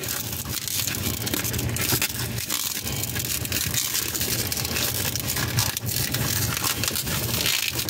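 Tightly inflated latex modelling balloon being twisted and wrapped by hand, giving a steady crackling, rubbing noise of latex on latex and skin. The balloon is stretched very tight, close to popping.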